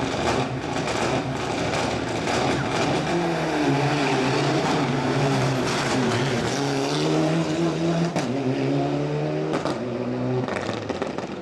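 Rally car engine running hard on a stage. Its pitch steps up and down through gear changes and lifts. The sound dies away near the end.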